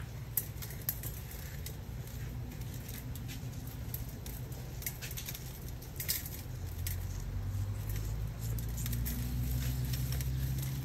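Salt grains pattering in scattered light ticks onto scored pork belly skin and a stainless steel tray, then a hand rubbing the salt into the skin. A low steady hum runs underneath and grows louder in the second half.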